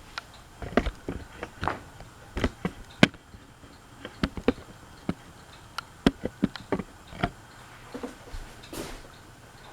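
A run of irregular sharp clicks and light knocks, some with a dull low thump, coming one or two at a time.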